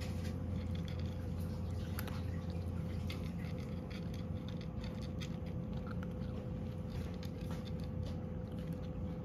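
A cat crunching dry kibble from a ceramic dish: a quick, irregular run of small crisp crunches and clicks, over a steady low hum.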